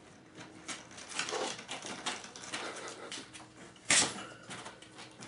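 A kitten clambering over a cardboard-lined wire pen: faint scratching and rustling of claws on cardboard, with one sharp knock about four seconds in.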